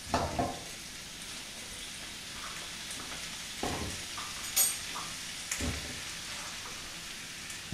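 Chicken and onions sizzling steadily in a frying wok, with a few short knocks and a sharp click as butternut squash chunks are handled and dropped into the pan.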